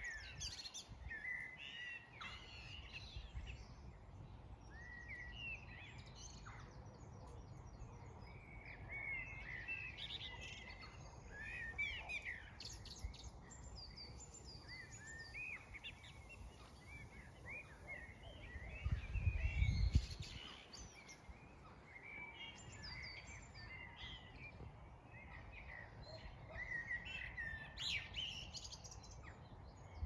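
Several songbirds singing and chirping, a mix of short chirps and warbled phrases. A breeze rumbles on the microphone underneath, with a stronger gust about two-thirds of the way through.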